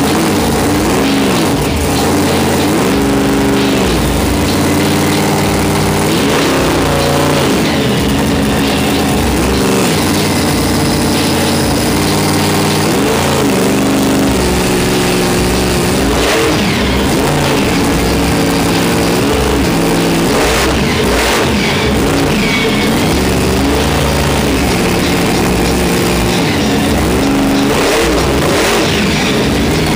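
Monster truck's 1,500-horsepower Merlin 540 V8 engine under hard throttle while being driven, its pitch rising and falling over and over every couple of seconds as the driver gets on and off the throttle.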